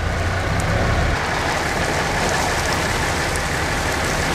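Steady rushing hiss of rain and wind on the camera microphone, with a few faint ticks of drops, during a tornadic thunderstorm. A low rumble underneath stops about a second in.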